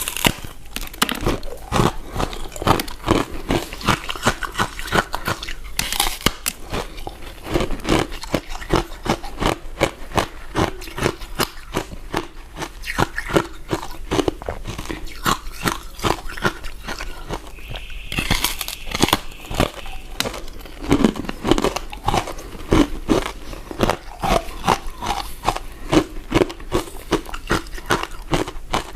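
A person chewing soft, chewy glutinous rice cakes: a dense, continuous run of quick mouth clicks and smacks.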